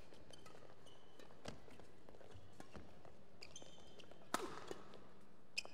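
Badminton rally: sharp racket strikes on the shuttlecock, the loudest about four seconds in as a jump smash, with short squeaks of court shoes on the floor between strikes.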